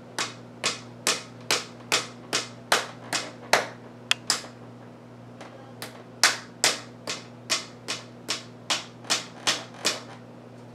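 Hand slaps striking the wrist of the hand that grips a katana's handle, an even run of about two or three a second, knocking to shake the blade loose from the tsuka. Two runs of about ten strikes each with a pause of about two seconds between, and a sharp double click in the pause. The blade is seated tightly and stays in.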